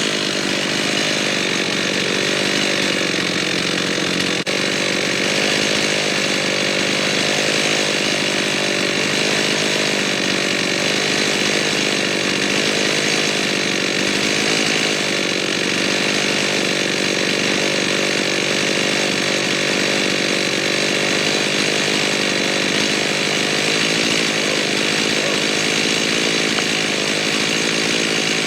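Stihl MS 391 two-stroke chainsaw on a chainsaw mill, held at full throttle and cutting steadily under heavy load as it rips a long plank from a large white oak log.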